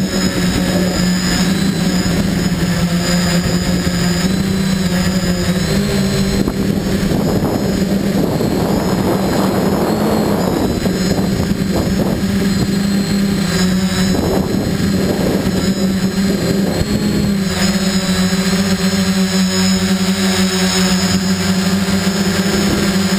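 Quadcopter's electric motors and propellers buzzing steadily, heard from the aircraft itself, the pitch stepping slightly up and down with throttle. Gusty wind rushes over the microphone for several seconds in the middle.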